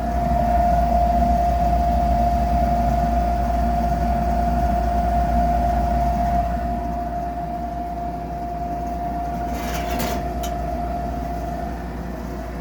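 Gas furnace running with its burners lit: a low rumble under a steady high whine from the Fasco inducer motor, whose rough sound the owner puts down to its bearings going out. A brief rustle about ten seconds in.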